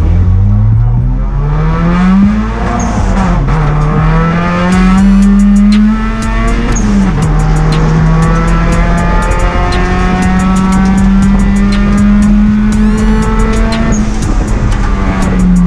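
Turbocharged Honda D16 four-cylinder in an EK Civic race car accelerating on track. Its pitch climbs, drops sharply at upshifts about two and a half seconds in and again about six seconds in, then holds fairly steady, and eases down near the end.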